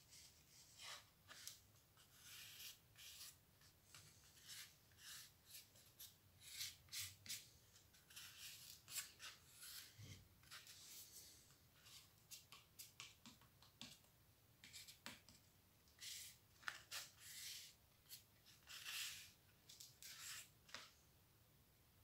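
Hands rubbing and pressing paper cut-outs against a cardboard sheet: faint, short, irregular scratchy rustles.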